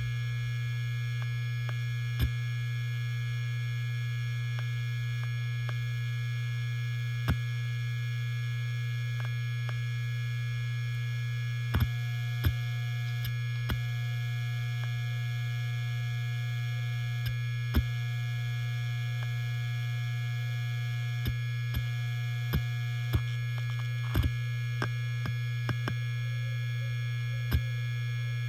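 Helium-filled hard disk drive spinning, a steady hum with a thin whine above it, broken by occasional sharp clicks of the read/write heads seeking, which come more often near the end.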